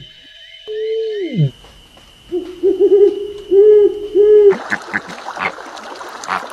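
Owl hooting: a single held call that drops in pitch at its end, then a run of short, low hoots. Near the end this gives way to water splashing.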